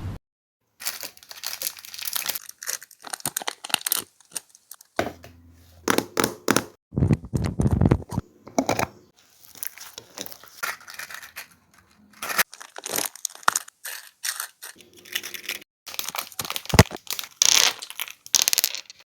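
Gui-Gui slime being squeezed, stretched and pressed by hand, giving irregular crackling, crinkling squishes with short breaks between them.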